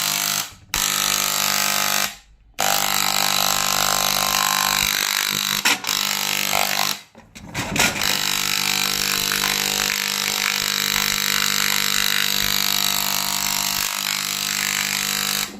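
A power tool's motor running steadily with a loud hiss and a constant hum, switched off and back on three times, around half a second, two seconds and seven seconds in, while the sewing machine is cleaned.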